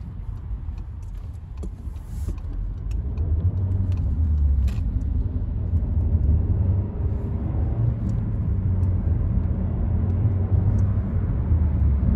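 Volkswagen Passat's turbocharged engine and tyre noise heard from inside the cabin as a low rumble, growing louder over the first few seconds as the car picks up speed, then holding steady at road speed.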